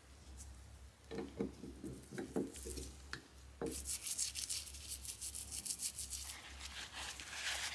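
A few light knocks of a metal screwdriver against a drinking glass of ammonia, then from about halfway a toothbrush scrubbing the screwdriver's plastic handle in quick strokes, brushing off the ammonia-softened white coating of a decomposing cellulose acetate butyrate handle.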